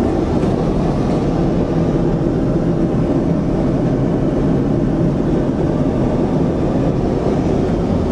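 Jet airliner cabin noise in flight, heard at a window seat beside a wing-mounted turbofan engine: a steady, deep rush of engine and airflow that does not change.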